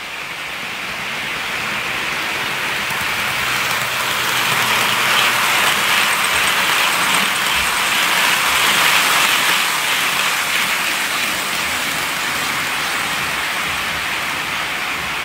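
OO gauge Bachmann Class 20 model diesel locomotive and its wagons running along model track, a steady rushing rattle of wheels and mechanism. It grows louder as the train approaches, is loudest as it passes, and eases only slightly afterwards.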